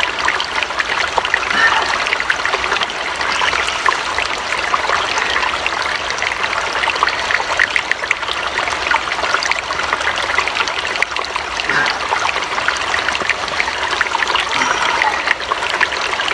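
A small stream trickling and babbling steadily.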